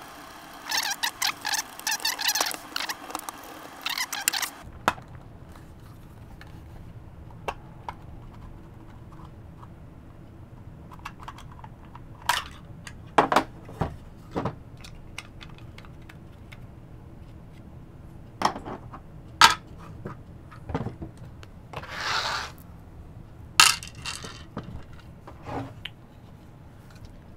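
Screwdriver backing screws out of the plastic case of a Ryobi 18V battery pack, a dense run of scraping and creaking for the first few seconds. After that come scattered clicks and knocks as the plastic case halves and the cell pack are pulled apart and handled.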